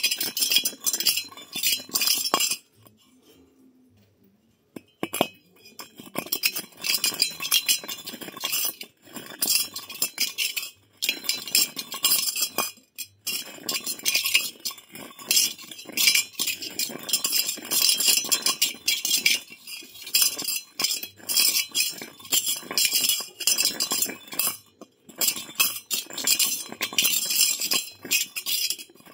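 Brass dome-shaped object spun on a concrete slab under a finger, giving a fast, continuous metallic clinking and rattling. The clinking stops for a couple of seconds near the start, then resumes with short breaks.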